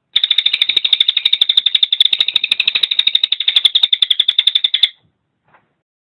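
Cililin (crested jay) giving a fast, dry rattling call of about twenty pulses a second, held for nearly five seconds and then stopping abruptly.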